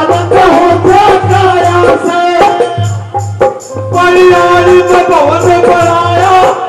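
Live Haryanvi folk devotional music: a harmonium melody over a steady hand-drum beat with a jingling rattle. It thins out briefly about three seconds in, then comes back in full.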